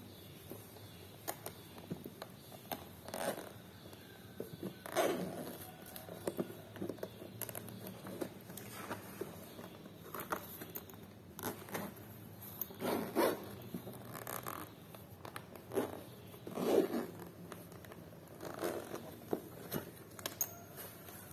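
Zipper of a black moulded hard-shell action-camera case being unzipped in a series of short, uneven pulls with pauses between them, until the case opens.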